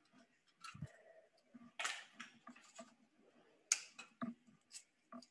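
Eggs being knocked against a glass mixing bowl and broken into it: a handful of short, sharp taps and cracks, the loudest about two seconds in and again near four seconds.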